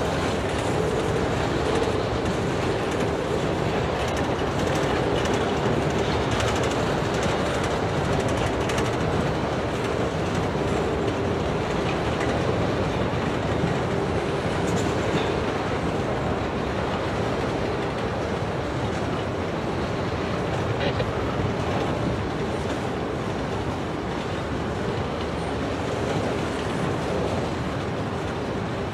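A train's cars rolling past on the track: a steady rumble of wheels on the rails with scattered clicks, easing off slightly near the end.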